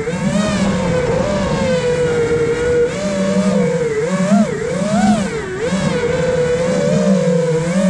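5-inch FPV quadcopter's brushless motors and propellers whining, recorded by the camera on board. The pitch holds steady for a few seconds, then swoops up and down several times in the middle as the throttle is worked.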